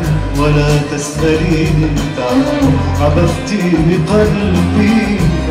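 Live Arabic tarab music: a male vocalist singing melismatic lines into a microphone over band accompaniment with a steady bass.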